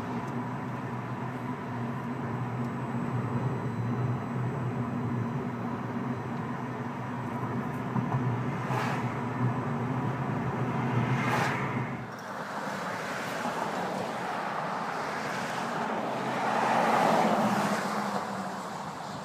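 Steady tyre and road noise inside the cabin of a 2012 Fiat 500 converted to all-electric drive, with a faint steady whine and no engine sound; an oncoming car passes about ten seconds in. About twelve seconds in the sound changes to an outdoor rush that swells and fades near the end.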